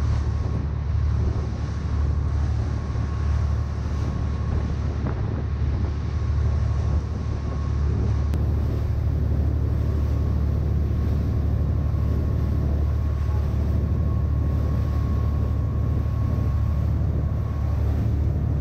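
Fishing boat's engine running with a steady low drone, with wind buffeting the microphone.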